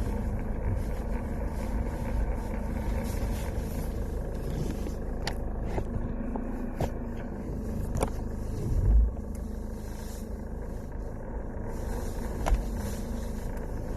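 Mercedes-Benz W203 C-Class car running, a steady low rumble of engine and road noise, with a few sharp clicks and a short louder thump about nine seconds in.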